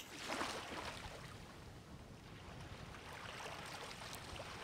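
Wind and choppy sea water washing around a sailboat's hull as a faint, steady rush, a little stronger about half a second in.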